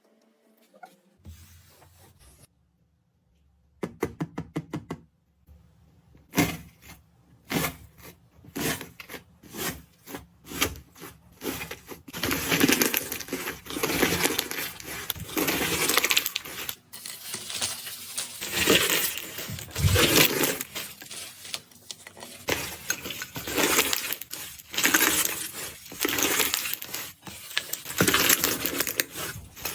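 Crisp crackling and crunching of iceberg slime's dried crust being pressed and broken: sparse clicks after a near-quiet start, thickening into dense, near-continuous crackling about halfway through.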